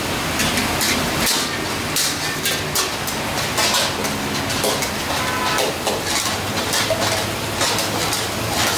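Long metal spatulas clanking and scraping against steel karahi woks as mutton is stirred over gas burners, many irregular knocks over a steady sizzle.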